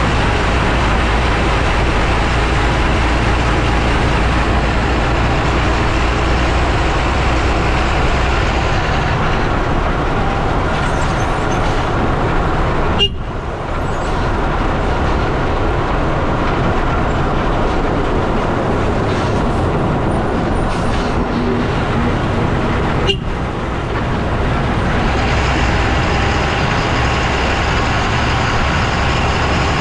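Lorry on the move, heard from under its chassis near the front wheel: a loud, steady rush of road and tyre noise mixed with the engine. Twice, about ten seconds apart, a sharp click with a brief drop in the noise.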